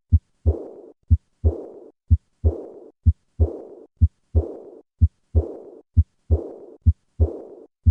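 Heart sounds of aortic regurgitation, about one beat a second. Each first and second heart sound is followed straight after the second sound by a high-pitched diastolic murmur that fades away well before the next beat.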